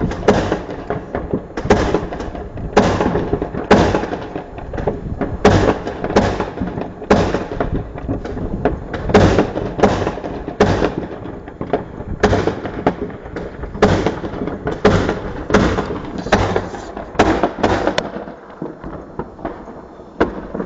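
Many fireworks exploding together: a dense, irregular run of sharp bangs and crackle, the shots overlapping, thinning out near the end.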